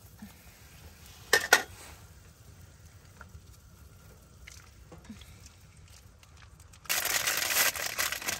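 Two sharp clicks from kitchen scissors about a second in, a few faint ticks, then near the end a second and a half of loud crinkling from plastic ramen packaging being torn and handled over a brass pot.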